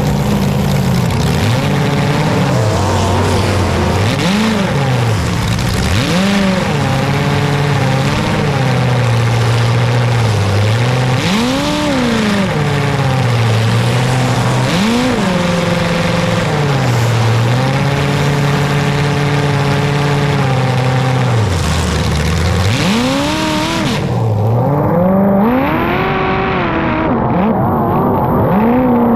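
Car engine revving up and down over and over, its pitch climbing and dropping every two to three seconds, running hard throughout.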